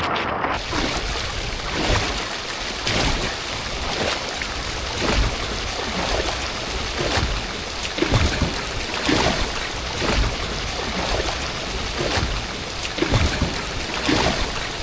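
Heavy rain and rough sea water splashing and slapping against a bamboo raft, in uneven surges.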